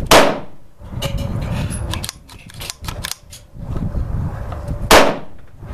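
Two loud gunshots nearly five seconds apart, each with a short echoing tail, with faint clicks and handling noise between them.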